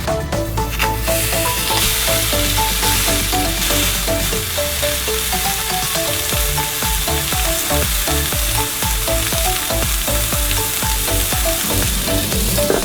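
Food sizzling as it fries in a hot pan, a steady hiss that comes in about a second in, with background music playing over it.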